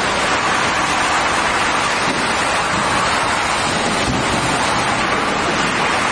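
Plywood sanding machine running: a steady, loud, even noise.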